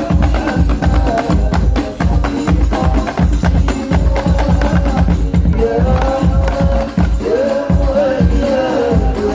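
Loud music with a fast, heavy bass beat and tambourine-like percussion; a wavering melody line comes to the fore in the second half.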